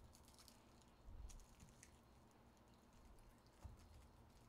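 Near silence: faint room tone with a low hum, a soft faint bump about a second in and a brief faint click near the end.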